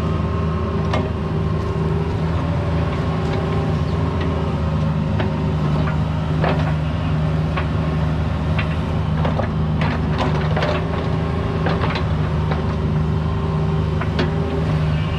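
Cat 304 mini excavator's diesel engine running steadily, with scattered sharp clicks and knocks over it.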